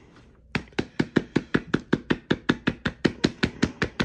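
Rapid, even knocking on a sneaker, about six taps a second, starting about half a second in: the shoe is being knocked to shake loose black nubuck renewal powder off the upper.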